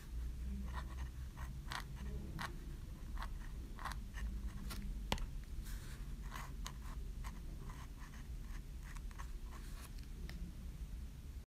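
Metal nib of a dip pen scratching across paper in quick, short, irregular strokes as a figure is sketched, with one sharp tick about five seconds in, over a faint low hum.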